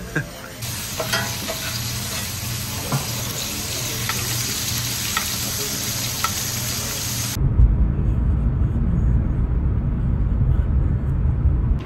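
Tomahawk steak sizzling in a frying pan as it is basted with a spoon. About seven seconds in, this cuts off to the steady low rumble of a car driving on an expressway.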